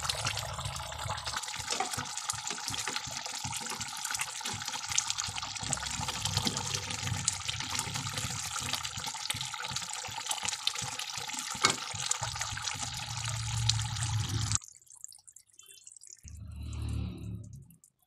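Egg and brinjal curry bubbling in a pan, a dense crackle of small pops in the thick gravy. It cuts off abruptly about fourteen and a half seconds in, leaving a short faint low sound near the end.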